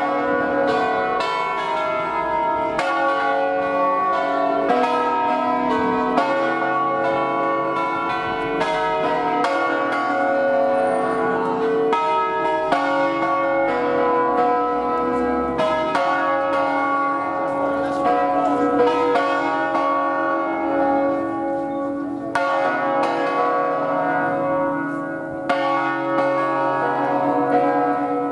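A concert of five bronze church bells tuned in B (Barigozzi bells, 1937), rung by rope in the Ambrosian system, swinging full circle and striking in turn about once a second, each note ringing on under the next.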